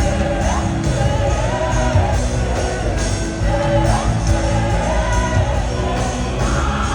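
Loud live worship music with singing and shouts over a heavy bass and drums.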